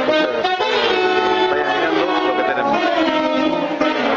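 A dance orchestra playing during a sound check, with wind instruments holding notes that change every second or so.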